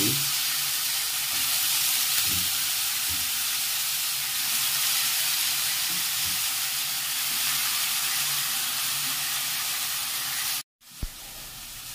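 Chopped cabbage and potatoes sizzling in hot tempered oil in a kadhai, with a few light spatula knocks. The sizzle breaks off abruptly near the end and comes back quieter.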